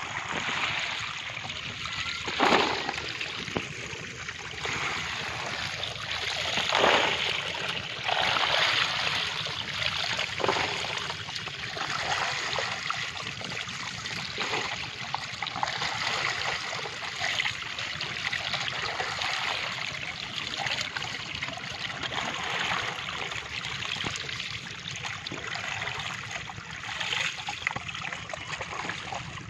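Muddy water trickling and splashing steadily, with several louder splashes and pours as small fish and water are scooped with a plastic colander and tipped out.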